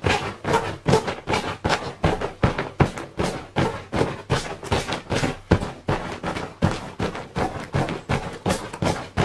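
A hand pressing down again and again on an inflated ripstop-nylon camping mat, a steady run of soft thumps and air-rustle at about three a second.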